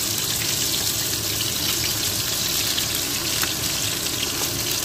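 Pieces of fish sizzling as they shallow-fry in hot oil in a frying pan: a steady, even hiss.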